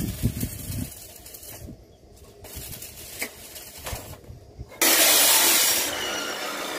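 Stick (arc) welding on mild steel: a few knocks of metal being handled, then about two-thirds of the way in the arc strikes suddenly into a loud crackling hiss that settles to a steady sizzle.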